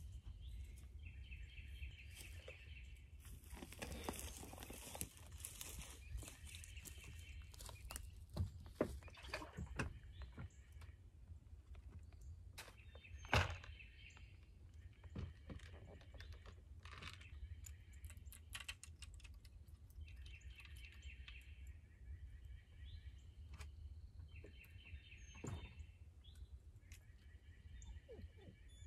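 A songbird repeats a short, dry, even trill, each about a second and a half long, every few seconds. Scattered knocks and clatter come from gear being handled on a wooden dock, with one sharper knock about 13 seconds in.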